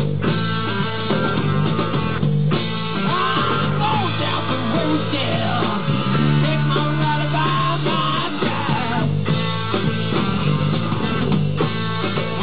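Live rock band playing: a purpleheart custom DP electric bass carrying sustained low notes under drums and electric guitar.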